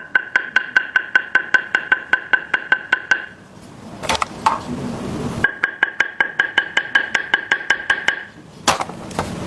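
Table tennis blades tapped rapidly, two runs of about three seconds each at roughly eight light knocks a second, each knock ringing with a clear steady note. A single knock falls in the pause between the runs. The two runs sound almost the same, as the blades are near-identical custom blades.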